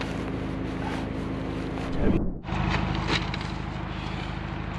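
A steady low mechanical hum like a running engine, with the rustle and knocks of gear being handled. The sound breaks off for a moment about two seconds in, and a short knock follows about a second later.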